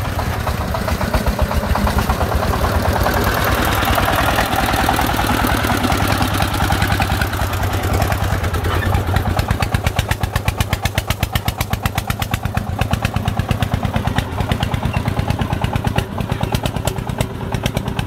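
Công nông farm truck's single-cylinder diesel engine chugging with a rapid, even beat as the brick-laden truck drives along a rough dirt track.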